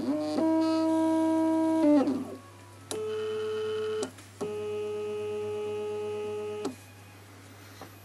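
Stepper motor driven by an Allegro A4983-based stepper driver board, whining at a steady pitch in three runs, each speeding up and slowing down with a short glide in pitch. The first run lasts about two seconds; the next two are higher in pitch, with clicks as they start and stop, and the whine ends about two-thirds of the way through.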